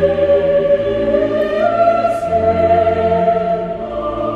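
Choral music: a choir singing long, held chords that change every second or two.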